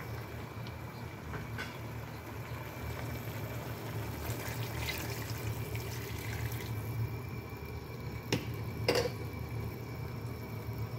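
Water poured from a glass measuring cup into an enamelled cast-iron pot of fried tofu and mushrooms, running and splashing over the food, with a couple of light clicks near the end.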